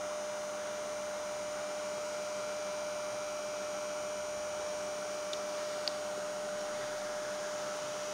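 Steady electrical hum with hiss, holding one constant mid-pitched tone, with a couple of faint ticks about five to six seconds in.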